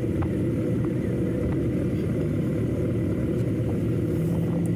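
Motorcycle running steadily at road speed, a constant low rumble of engine and road noise.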